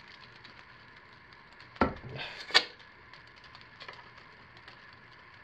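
Two sharp clicks less than a second apart, about two seconds in, from a metal measuring teaspoon and a plastic jug of sodium lactate being handled over a crock pot while teaspoons are measured into cooked hot process soap.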